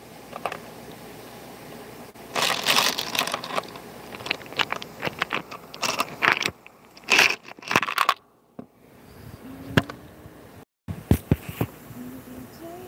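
Small metal parts clinking and rattling against each other in a plastic bin as gloved hands sift and scoop through them, in irregular runs of quick clatters and scrapes. The busiest rattling comes about two to three and a half seconds in and again around six to eight seconds.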